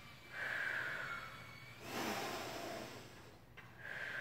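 A woman breathing hard in and out, three audible breaths, as she catches her breath while holding downward dog after a cardio interval.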